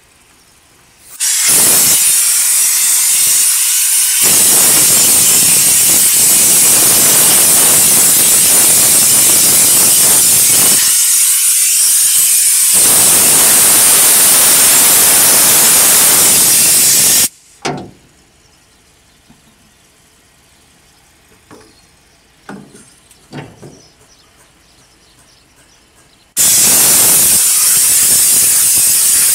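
Compressed air hissing from a hose nozzle as it blows dust out of a Caterpillar generator's air filter element. The loud steady hiss starts about a second in and stops after about sixteen seconds; a few light knocks follow, and the hiss starts again near the end.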